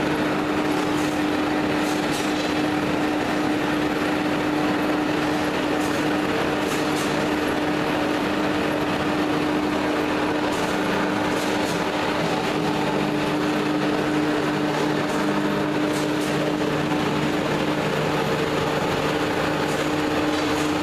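Clay-brick production machinery, driven by electric motors and gear reducers, running steadily: a constant machine hum with one strong steady tone under it. Faint light clicks come every few seconds.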